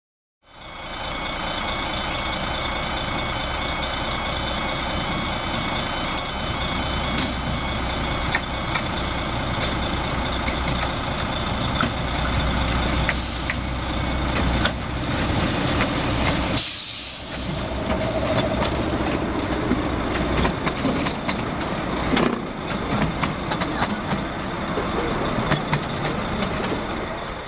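Miniature 10¼-inch gauge steam locomotive of Hunslet quarry design hauling its passenger train, a steady rumble and hiss. In the later part there are scattered clicks of the carriage wheels over the track.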